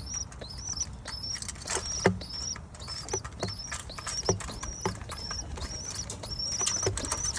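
Young pigeon squabs, about two weeks old, peeping: a rapid series of short, high-pitched squeaks, about two a second, with a few soft knocks in between.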